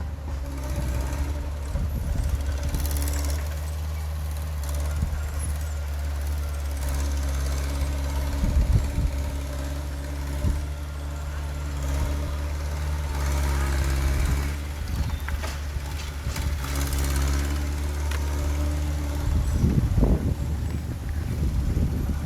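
Heavy diesel engine of earthmoving machinery running steadily, with a few scattered knocks and clanks.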